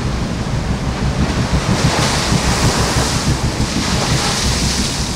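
Sea rushing and breaking along the hull of a square-rigged sailing ship under way, with strong wind buffeting the microphone. A louder hiss of rushing water and spray swells up about two seconds in and again near the end.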